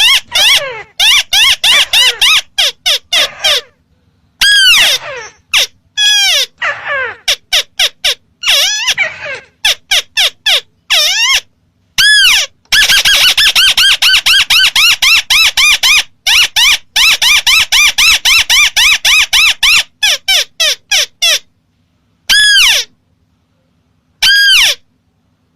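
Lure recording of a tikusan crake (a red-eyed rail of rice fields and swamps) calling. Rapid runs of short, harsh notes, each dropping in pitch, come several a second with brief pauses between runs, and one long unbroken run comes midway.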